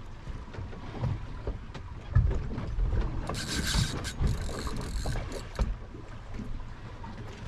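Spinning reel being cranked, its gears clicking and ticking, over a steady low wind-and-water rumble. Two bursts of hiss come around the middle.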